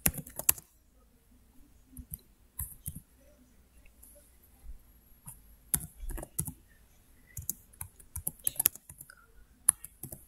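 Computer keyboard typing: irregular keystroke clicks in short flurries with pauses between them, the loudest flurry right at the start.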